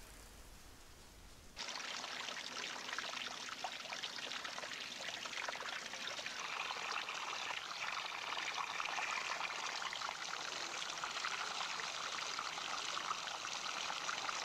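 Water running and splashing onto stone paving. It starts abruptly about a second and a half in, then keeps up a steady, spattering flow.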